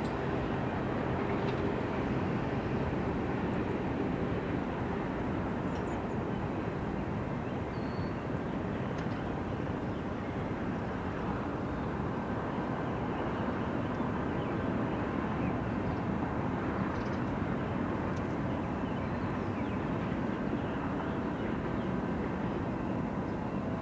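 Steady rumble of a long freight train's cars rolling away down the track.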